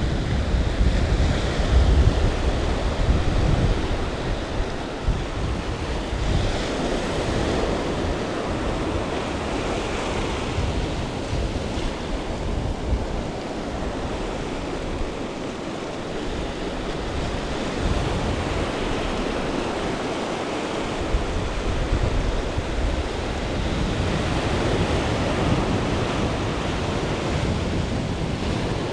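Small ocean waves breaking and washing up the beach in a continuous surf noise. Gusts of wind buffet the microphone, strongest in the first few seconds and easing off around the middle.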